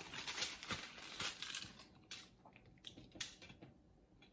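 Crust of a pizza slice crackling as it is pulled apart by hand: a scatter of small crunching clicks that thins out after about two seconds.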